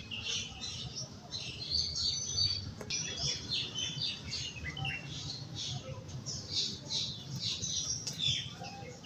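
Bulbuls calling: a dense run of short, high chirps overlapping almost without pause, with a low steady hum underneath.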